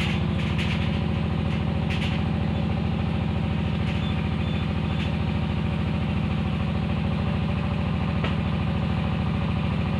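An engine running steadily at a constant speed, with a few light clacks of clay bricks being stacked onto a cart.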